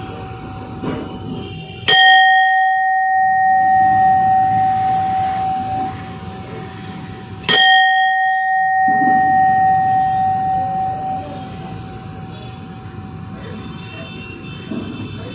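A metal bell struck twice, about five and a half seconds apart. Each strike is a sharp clang followed by a clear ring at one steady pitch that fades over several seconds. It is being rung as a sound check, where a long ring is taken as the sign of a good bronze bell.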